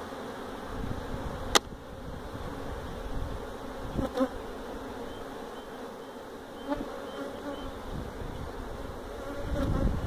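Honeybees buzzing steadily around an open hive. There is a sharp click about one and a half seconds in and a few fainter knocks later.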